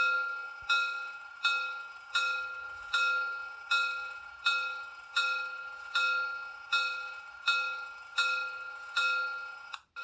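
Model steam locomotive's sound-decoder bell ringing from its small speaker, about fourteen even strokes, each one dying away before the next. The ringing cuts off suddenly near the end, once the energy buffer that powered the decoder after the power was disconnected runs out.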